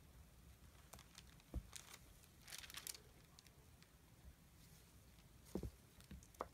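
Faint handling sounds of a melt-and-pour soap loaf being cut into bars with a long blade: a soft knock about one and a half seconds in, a brief scraping rustle a second later, and a soft thump near the end.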